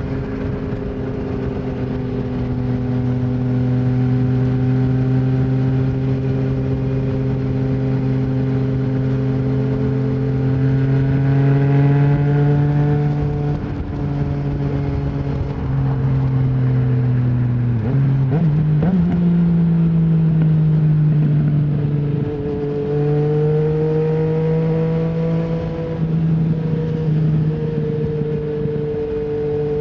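Engine note of a 2020 Yamaha MT-09's inline three-cylinder through an Akrapovic full exhaust without its dB killer, under steady riding with gently rising revs. About halfway through, the pitch breaks and drops, then jumps up before it climbs steadily again.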